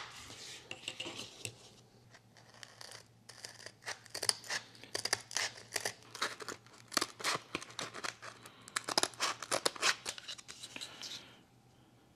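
Scissors cutting through sandpaper-like adhesive grip tape on its paper backing: a quick run of sharp snips, which stops about a second before the end.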